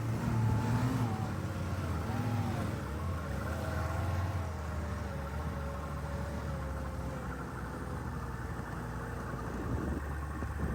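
Snowmobile engine running, its pitch wavering up and down and slowly dropping as the throttle eases.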